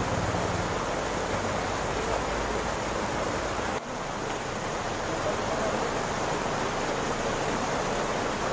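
Steady rushing of water, an even roar with a brief drop just before four seconds in.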